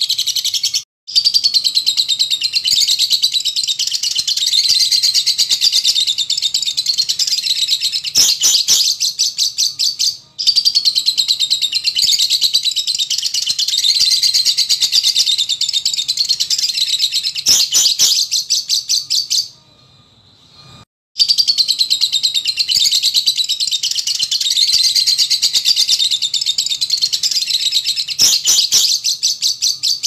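Fischer's lovebird singing long, unbroken high-pitched chattering song in three bouts of about nine seconds with short pauses between them. Each bout ends in a quick run of clicking notes.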